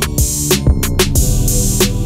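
Background music with a steady drum beat over a bass line.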